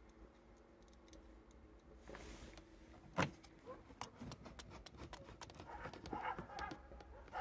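Faint clicks and taps of a screwdriver and screws against the snowmobile's plastic console panels: one sharper knock about three seconds in, then a run of small quick ticks and scrapes.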